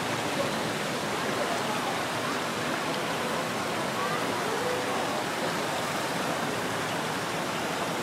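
Steady outdoor ambience in a city park: an even rushing noise with faint distant voices.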